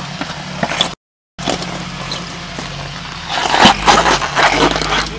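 Jeep YJ Wrangler engine running under load as it crawls over rock, cut off briefly about a second in. Past the middle the engine works harder and a tyre spins, scrabbling and flinging gravel and mud with a flurry of knocks.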